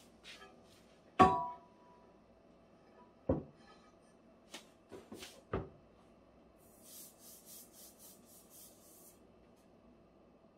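Hard clacks and knocks of an induction cooktop's flat top plate being lifted and propped upright, the loudest with a short ring about a second in, then a few lighter knocks. Later, a run of about eight soft rubbing strokes from hands moving over the unit.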